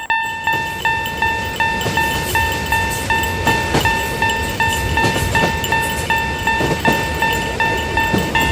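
Japanese railroad crossing warning bell ringing in a steady, rapid ding, about three strikes a second. Under it, from the start, a train rumbles past with scattered clicks.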